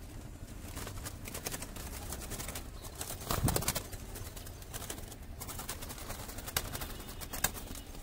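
Scattered clicks and rattles of a wire-mesh bird cage being handled as a caught pigeon is put inside, with one louder rustling thump about three and a half seconds in.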